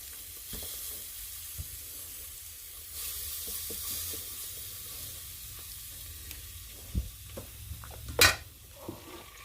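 Hot barbecue pork ribs sizzling with a steady faint hiss, with light clicks of handling and a sharp knock about eight seconds in.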